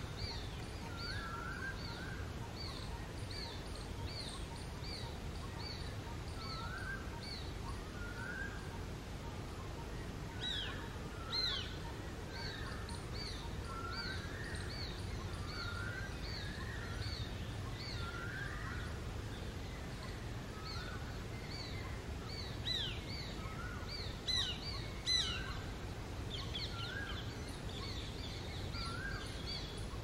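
Juvenile shikra calling to its parents for food: a long run of short, repeated whistled notes, about two a second. There are a few louder down-slurred notes about ten seconds in and again around twenty-three to twenty-five seconds in. A steady low background hum runs under the calls.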